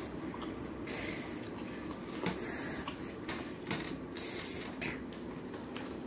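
Close-up eating sounds: chewing and lip-smacking, with wet squelches of fingers mixing rice and fish curry on a steel plate. There is a light tap about two seconds in.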